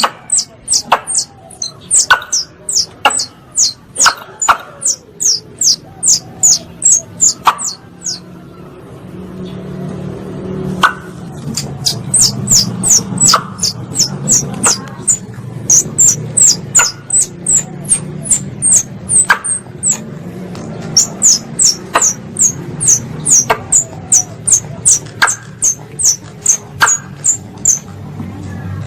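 Squirrel call played as a hunting lure: a rapid run of sharp, high chirps, about three a second, each dropping quickly in pitch, with a pause about 8 seconds in and a short break near 20 seconds.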